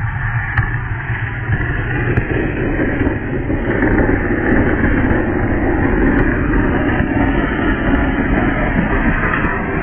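Flower pot (anar) fountain firework burning inside a hollowed-out papaya, a steady loud rushing hiss of its spark jet that grows a little louder a few seconds in.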